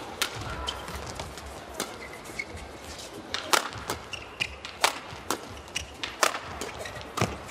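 Badminton rackets striking a shuttlecock back and forth in a fast doubles rally: about seven sharp cracks at irregular intervals, including a smash.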